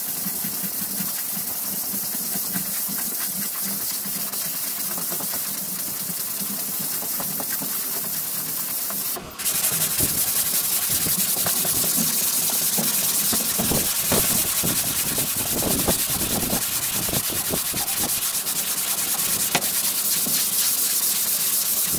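Long Dura-Block sanding board with 80-grit paper being stroked back and forth over cured fairing compound on a plywood boat hull: a steady rasping hiss. It breaks off for a moment about nine seconds in and comes back louder, with the single strokes standing out.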